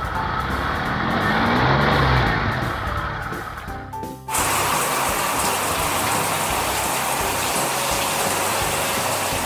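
Sound effects of a car engine running as the taxi rolls in, its pitch rising and falling, then about four seconds in a sudden steady hiss of a car-wash water jet spraying, over light background music.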